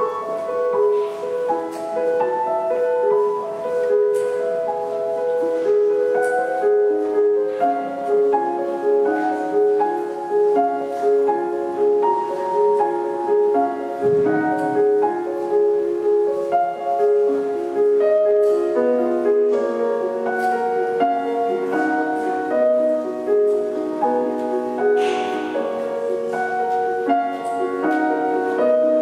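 Slow solo keyboard music, a gentle instrumental piece of sustained notes played without singing.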